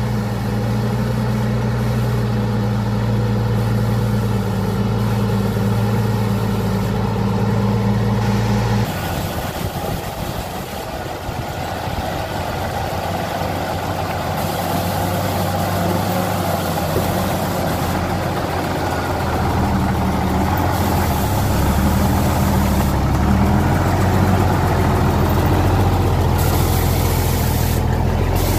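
Truck engine running: a steady low hum for about the first nine seconds. It then changes abruptly to a noisier sound without the steady hum. Later the engine's low note comes back and wavers up and down.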